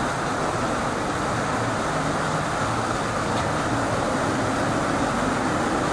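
Fountain jets splashing down into the basin: a steady, even rushing of falling water.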